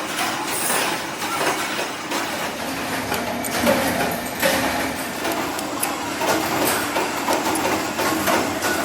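Busy metal workshop: a running machine with a constant clatter of small metal knocks and clicks.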